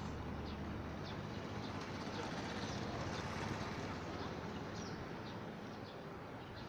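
Steady outdoor background noise with a low rumble that fades about a second in. Small birds give short, high chirps several times over it.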